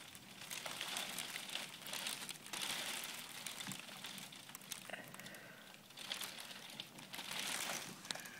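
Heavy rain rattling against a window pane, a dense crackling patter that swells and eases every second or two, heard from inside the room.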